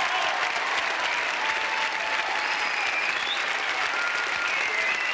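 Large audience in a theatre applauding steadily.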